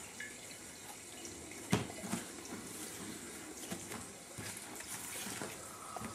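Paper rustling and shuffling as drawings on card and a sketchbook are handled, with scattered soft clicks and one sharper tap nearly two seconds in.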